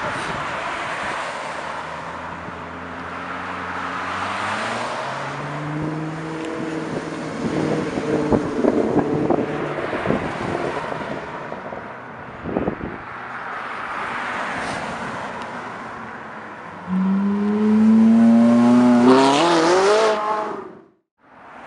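Sports-car engines accelerating through the gears, their pitch climbing in steps, with traffic passing. Near the end a Ferrari 458 Italia's V8 revs hard, its pitch rising steeply and loudest of all, before the sound cuts off abruptly.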